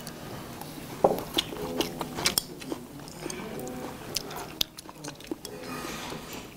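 People eating at a table: chewing and biting, with scattered short clicks of chopsticks against plates and bowls.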